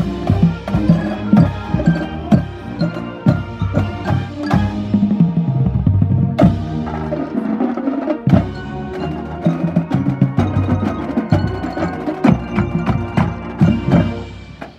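Marching band playing: brass chords with percussion strikes on the beat. The music stops just before the end.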